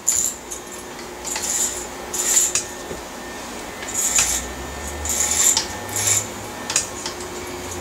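Corded electric hair clippers running with a steady motor hum, cut through the hair on top in about eight short passes, each a brief crisp cutting sound.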